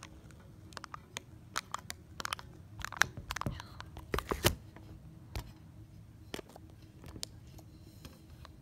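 Rustling with a run of sharp clicks and light knocks from things being handled, loudest about three seconds and four and a half seconds in, over a faint steady low hum.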